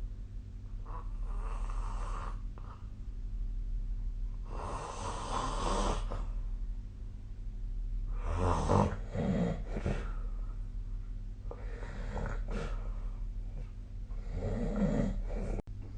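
A sleeping person snoring: about five snoring breaths, roughly three to four seconds apart, the loudest just past the middle, over a steady low hum.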